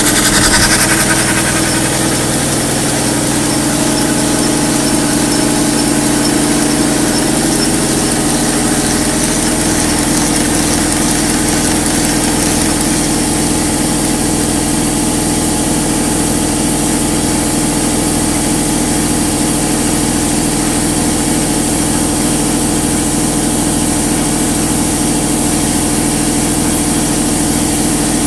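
Model traction steam engine running steadily on compressed air, its crank and connecting rod turning at an even pace, with the air compressors that feed it running alongside.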